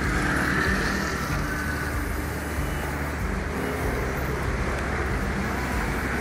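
Rush-hour road traffic on a wet street: a steady wash of passing car noise with a low engine hum.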